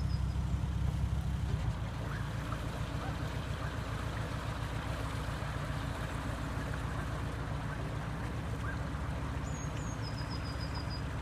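A narrowboat's diesel engine chugging at low revs, easing a little about two seconds in. A small bird sings a short run of high notes at the start and again near the end.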